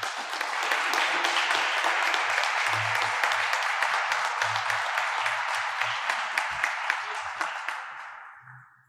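Audience applauding, with single sharp claps standing out from the crowd. It tapers off and fades out about eight seconds in.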